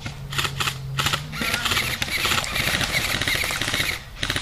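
Airsoft rifles firing: a few single shots in the first second or so, then rapid automatic fire for the rest.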